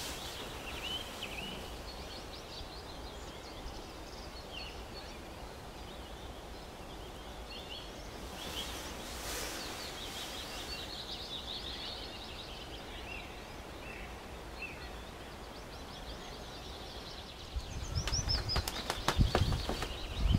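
Many short, high bird chirps and calls over steady outdoor background noise. Near the end comes a run of low thumps and knocks, the loudest part.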